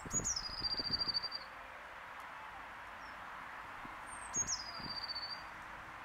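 Blue tit singing two song phrases about four seconds apart. Each is a high, thin note followed by a fast, lower trill lasting about a second.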